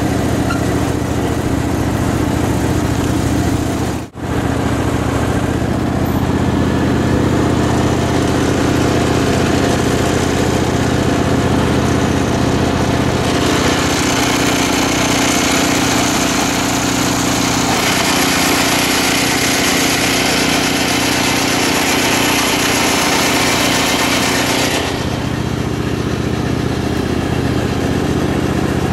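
Engines of a Craftsman riding garden tractor and its pull-behind Craftsman roto tiller running steadily while tilling. The sound briefly cuts out about four seconds in. From about thirteen to twenty-five seconds in, a louder hiss rides over the engine as the tiller works through soil.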